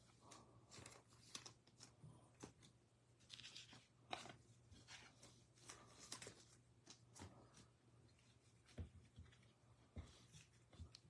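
Faint rustling and light clicks of trading cards and plastic card sleeves being handled, over a faint steady low hum.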